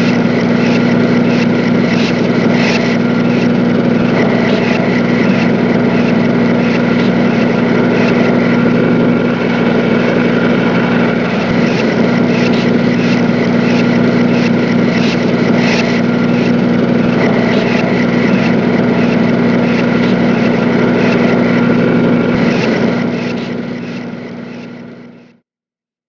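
Engine powering the chopstick-making machinery, running steadily at constant speed with an even drone and some light clatter over it. It fades out near the end.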